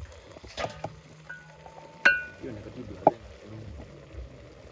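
Cookware being handled: a few soft clicks, then a sharp metallic clink that rings briefly about two seconds in, and a duller knock about a second later.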